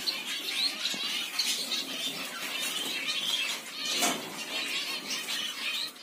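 Many small cage finches chirping and twittering continuously, with a couple of brief rustles from handling.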